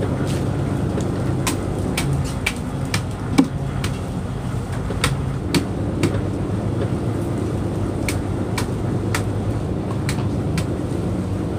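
A fishing boat's engine running with a steady low drone, while sharp clicks and knocks from the net handling on deck come irregularly, about one or two a second.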